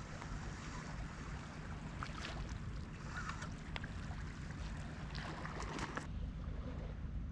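Wind rumbling on the microphone over seawater washing at the shore, with a scatter of light clicks in the middle that stop about six seconds in.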